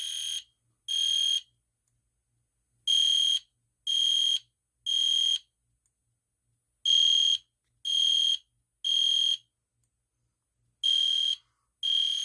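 EST Genesis fire alarm horn strobe sounding the code 3 (temporal-three) evacuation pattern: groups of three high-pitched electronic beeps about a second apart, each group followed by a pause of about a second and a half.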